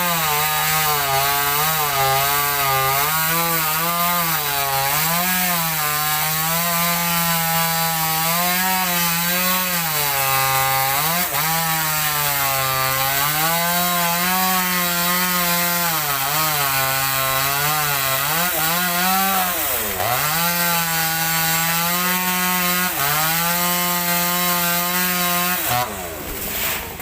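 Two-stroke chainsaw cutting into mango wood, its engine note sagging and recovering as the chain bites. About two-thirds of the way through the engine speed drops sharply and picks back up, and near the end the sound falls away.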